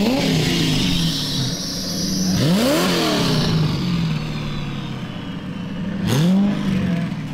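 Drift car engine revving in sharp rises that fall back, three times: at the start, about two and a half seconds in, and about six seconds in. Wind noise hisses on the microphone throughout.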